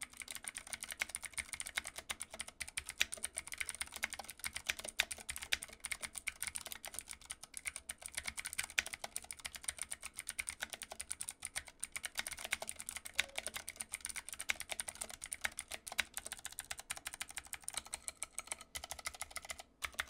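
Typing on a Ducky One 2 Mecha Mini, an aluminium-cased 60% keyboard with Cherry MX Blue switches. It gives a fast, continuous stream of sharp, clicky keystrokes that stops just before the end.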